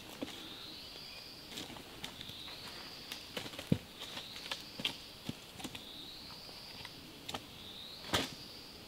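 Firewood being handled and shifted in a campfire: scattered sharp knocks and crackles of wood, the loudest about four seconds in and another near the end. Under it runs a steady high insect drone that slowly wavers in pitch.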